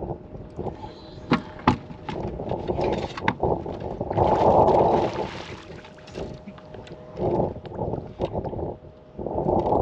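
Wind buffeting the microphone and water against a bass boat's hull, with scattered sharp clicks and knocks from rod and landing-net handling while a bass is played and netted. A louder rush of noise swells about four seconds in and lasts a second or so.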